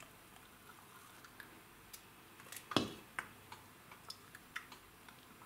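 Light scattered clicks and taps of a steel funnel against the glass neck of a bottle as thick pumpkin juice is poured in, with one louder knock nearly three seconds in.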